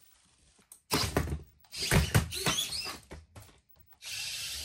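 Servo-driven 3D-printed humanoid robot moving through its fall and get-up sequence: servos whirring and plastic limbs clattering and knocking against a wooden floor, with several loud knocks between about one and three seconds in. A short steady hiss follows near the end.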